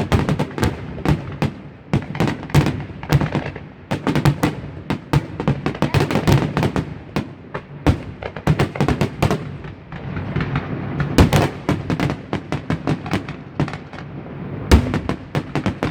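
Fireworks finale barrage: rapid, overlapping bangs and crackles, many per second, with a low rumble beneath.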